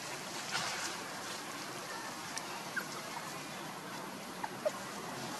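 Steady outdoor background hiss, with a few short, faint high chirps and small clicks scattered through it.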